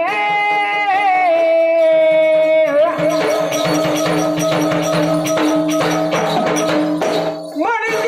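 Marathi gondhal folk music: a male singer holding long notes that slide from one pitch to the next, over a steady drone. About three seconds in, fast, even percussion joins. The percussion stops near the end as a new rising sung phrase begins.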